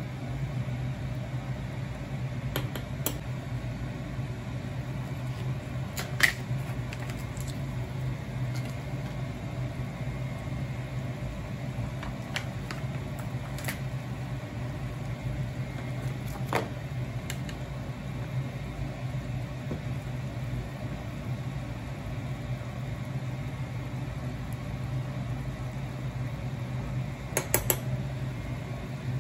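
A steady low kitchen hum, with a few sharp clinks of a metal ladle against a soup pot: the loudest about six seconds in and a quick cluster near the end.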